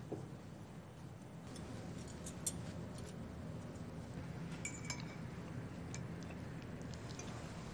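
Faint clinks of forks against china plates as food is eaten: a few light clicks and taps, one near the middle ringing briefly, over a steady low room hum.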